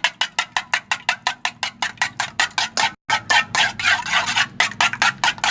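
Two raw eggs being beaten in a large bowl with a utensil, a fast even clatter of about seven strokes a second against the bowl, with a brief break about halfway through.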